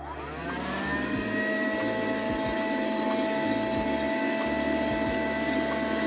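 Clatronic AKS 828 handheld car vacuum cleaner, running on its newly fitted lithium-ion battery, switched on. Its motor spins up with a rising whine over about a second, then runs steadily with a constant whine and rushing air.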